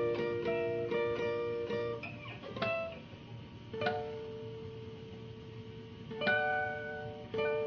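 Instrumental music: a plucked acoustic string instrument playing a quick run of notes, then a few single chords left to ring out, slowing down.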